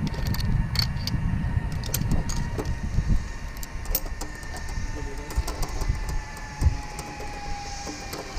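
Zip line trolley pulleys rolling along the steel cable: a steady metallic whine that slowly falls in pitch, with scattered rattles and ticks, over a low rumble of wind on the microphone.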